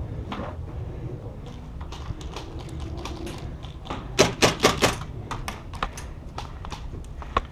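Airsoft gunfire: a quick string of about five sharp cracks just past the middle, with scattered lighter clicks before and after.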